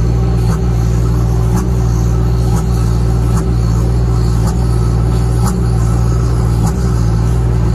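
Loaded six-wheel truck's diesel engine running steadily in second gear on a steep downhill, holding the truck back on the engine rather than the wheel brakes, heard from inside the cab. Light knocks come about once a second over the drone.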